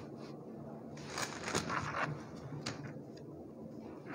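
Thin Bible pages being turned by hand: several soft paper rustles, the clearest between one and two seconds in.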